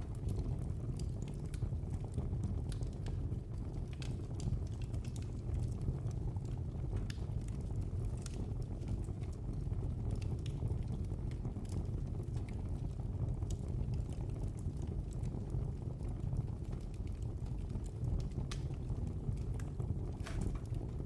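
Wood fire burning in a fireplace: a steady low rumble of flames with frequent irregular crackles and sharp pops.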